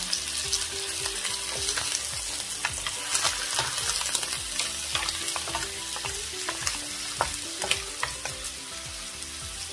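Shell-on green-lipped mussels stirred with a wooden spoon in a hot wok, sizzling in oil, with many sharp clicks as the shells knock against each other and the pan.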